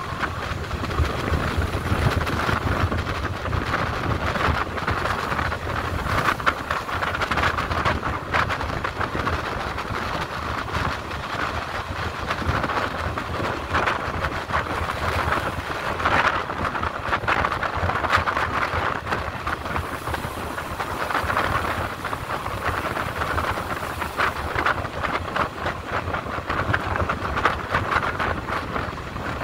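Passenger train running along the track, heard from on board: a steady rumble and rush of wheels on rails with many small clicks and rattles.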